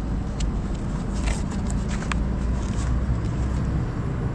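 A glossy paper catalogue and packaging being handled, giving a few short sharp rustles and crackles, over a steady low rumble.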